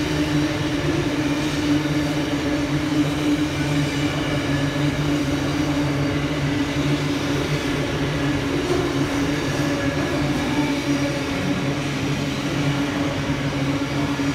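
C and VL class diesel-electric freight locomotives running with a steady, even engine drone.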